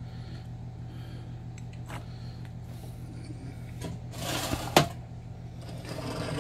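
A metal roasting pan slid back across a glass-top stove: a short scrape that ends in a sharp clack about four seconds in, followed by softer clinks of a small bowl with a wire whisk being drawn forward, over a steady low hum.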